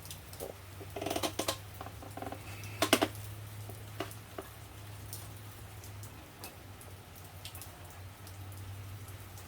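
Light clicks, taps and scrapes from handling an e-bike brake cable and hand tools, loudest in a quick cluster of clicks about three seconds in, over a steady low hum.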